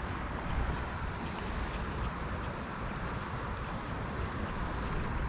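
Fast river current rushing steadily, with gusts of wind buffeting the microphone.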